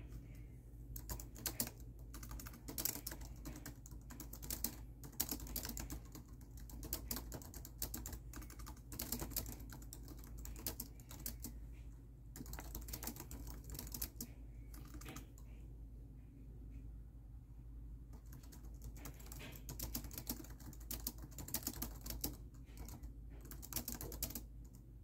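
Typing on a laptop keyboard: quick runs of key clicks in bursts, thinning out for a few seconds in the middle before picking up again, over a steady low hum.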